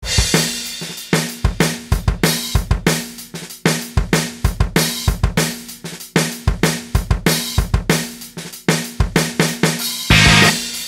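Programmed rock drum kit playing a drum intro alone: kick, snare, hi-hat and cymbal hits in a steady beat. About ten seconds in, distorted electric guitar and bass come in together.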